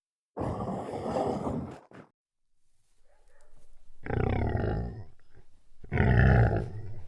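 A large animal calling: a rough, noisy call near the start, then two deeper, drawn-out calls about two seconds apart.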